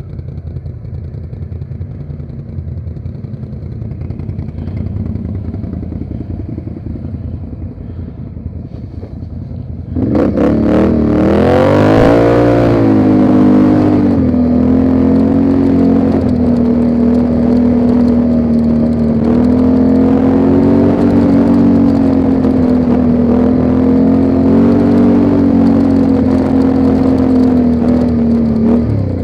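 ATV engine running quietly at low speed, then about ten seconds in it is throttled up sharply, its pitch rising and wavering before it settles into steady, loud running at speed; it eases off briefly near the end.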